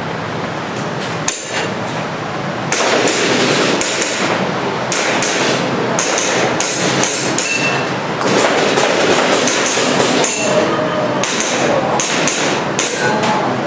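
Airsoft pistol being fired in rapid strings of sharp cracks during a timed practical-shooting stage.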